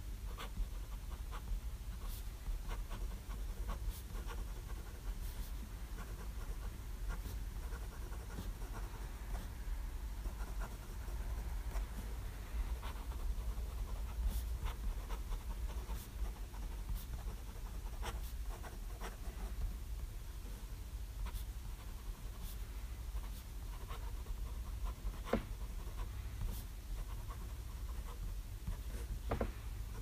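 Pilot Custom 823 fountain pen with a medium nib writing on 90 gsm Rhodia paper: soft nib scratching with scattered light ticks as strokes start and lift, over a steady low hum.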